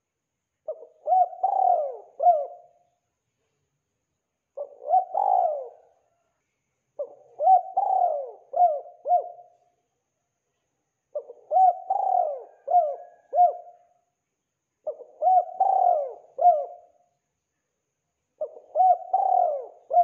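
Spotted dove cooing: six phrases of three or four notes each, repeated every three to four seconds.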